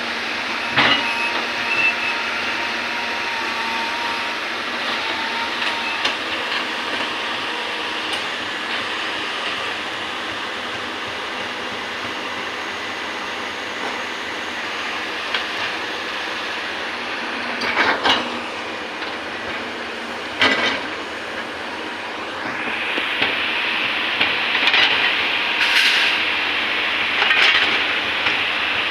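Excavator engine running steadily while it works, with sharp metal clanks about a second in and twice more later on. The sound grows busier near the end.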